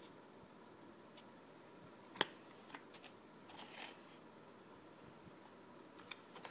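Faint handling noise from a hand working soft white slime in a clear plastic tub: mostly near silence, with one sharp click about two seconds in and light crackling a second or so later.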